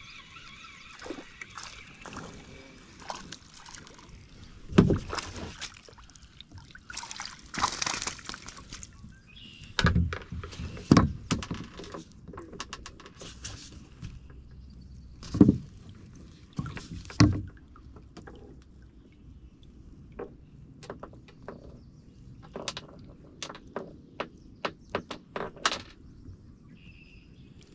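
Scattered knocks and bumps on a kayak's hull, with water sloshing around the boat.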